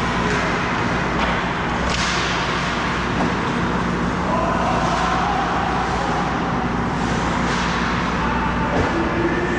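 Hockey skate blades carving and scraping on the ice over steady rink noise, with a sudden harder scrape about two seconds in.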